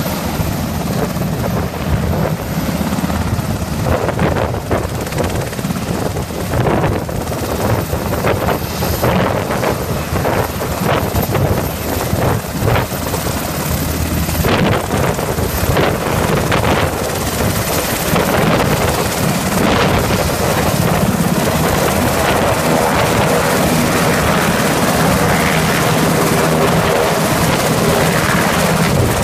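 Medevac helicopters taxiing: the main rotors beat on steadily over the turbine engines' running, loud and continuous. A pitched turbine whine comes to the fore in the second half.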